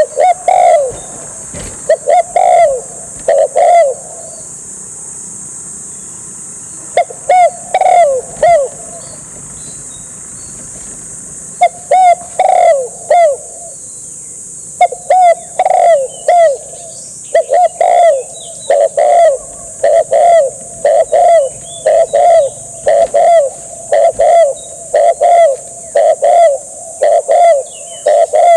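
Spotted dove call played from a Bluetooth speaker as a trapping lure: phrases of low coos repeated over and over. It pauses for a few seconds twice, then coos almost without a break through the second half.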